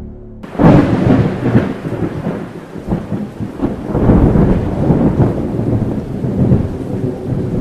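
Loud, continuous rumbling noise like thunder with heavy rain, starting suddenly about half a second in and surging up and down.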